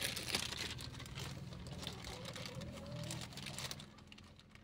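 Crinkling and rustling of a plastic bag worn over a hand, with scattered light clicks, fading after about three and a half seconds. A faint wavering call is heard in the middle.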